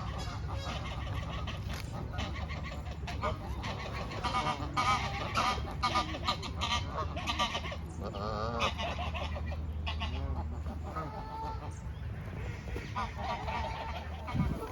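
Geese honking: a group calling repeatedly, with many overlapping honks.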